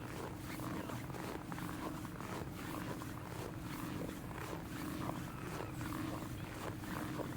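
Footsteps in snow, about two steps a second, over a steady low rumble of blizzard wind buffeting the microphone.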